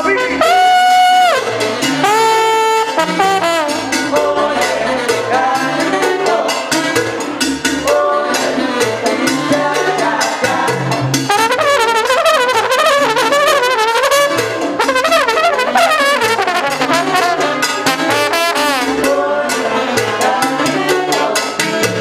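Trombone solo with a salsa big band: a few long held notes near the start, then quick runs of notes, over bass and percussion keeping the beat.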